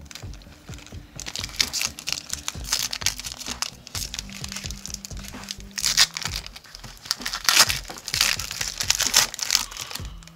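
Plastic wrapper of a basketball card pack crinkling as it is handled and torn open, in irregular crackly bursts that are loudest over the last few seconds.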